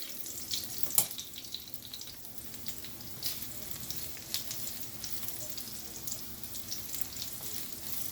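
Sliced garlic and ginger sautéing in hot vegetable oil: a steady sizzle with scattered pops and crackles, one sharper pop about a second in.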